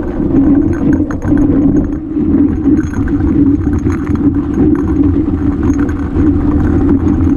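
Mountain bike descending rocky singletrack, heard on the camera microphone: a steady loud rumble of tyres on dirt and rock, with frequent small rattles and knocks as the bike rolls over stones.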